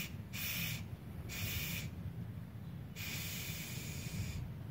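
Argon shielding gas hissing out of a manual TIG torch's nozzle in four bursts as the torch's gas valve is opened and shut, the last burst lasting about a second and a half.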